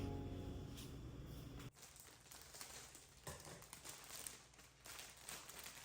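Soft piano music dying away over the first second and a half, then faint rustling with a few light clicks.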